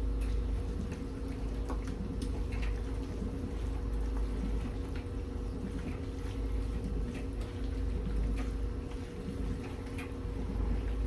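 A spoon stirring a thick mixture of cream of chicken soup, canned milk and shredded cheese in a pot, with soft wet squishing and scattered light clicks against the pot, over a steady low hum.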